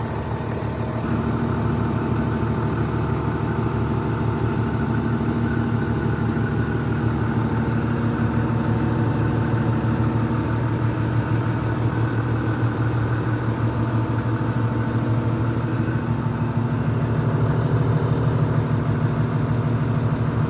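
Excavator engine running at a steady speed.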